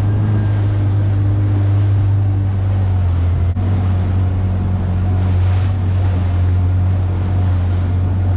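Kawasaki Ultra 310 LX-S jet ski's supercharged four-cylinder engine running at a steady, low no-wake speed, a constant low hum. There is a short dip about three and a half seconds in.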